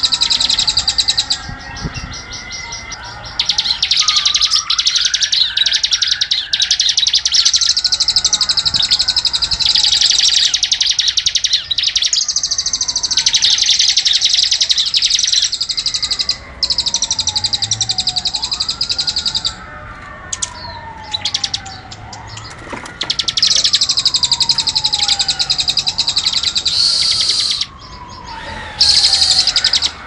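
Bird-song recording of a bar-winged prinia (ciblek) and a cililin singing persistently. Long, rapid, high-pitched buzzing trills run in stretches of several seconds with short breaks. Beneath them a lower slurred whistle falls in pitch, repeated about every two seconds.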